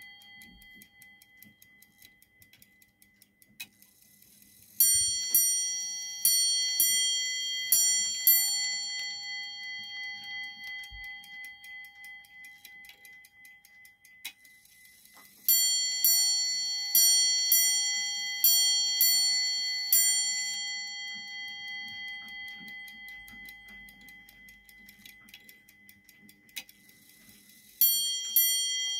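Ship's clock movement ticking steadily and striking its bell in quick pairs of ringing strikes, in three runs about ten seconds apart.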